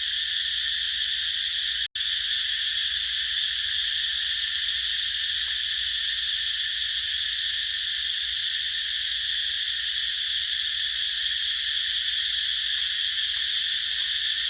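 Chorus of cicadas buzzing continuously as a dense, high, steady hiss, strongest in the upper-middle range. The sound cuts out completely for an instant about two seconds in.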